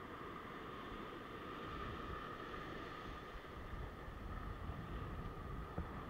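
Ocean surf breaking and washing over a rock ledge: a steady rush of water and wind noise with a low rumble. A single brief knock near the end.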